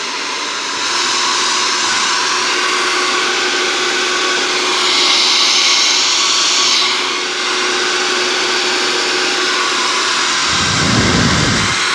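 Powertec professional hair dryer running on its hottest setting: a loud, steady rush of air with a steady hum under it. The hiss grows brighter for a couple of seconds midway, and a low rumble comes in about ten seconds in.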